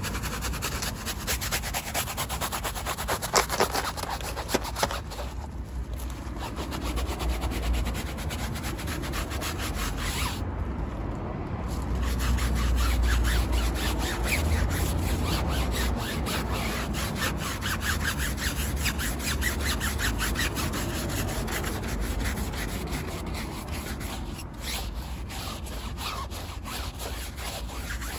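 Stiff-bristled tyre brush scrubbing a soapy, foam-covered off-road tyre sidewall in a fast, steady run of short back-and-forth strokes, with a brief break a little over a third of the way in.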